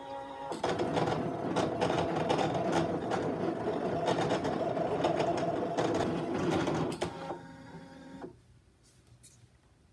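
Brother ScanNCut CM350 electronic cutting machine cutting out a printed sheet: its motors whir and buzz as the blade carriage and mat shuttle back and forth. Near the end the busy sound gives way to a steady whine as the mat feeds out, then it stops about eight seconds in when the cut is finished.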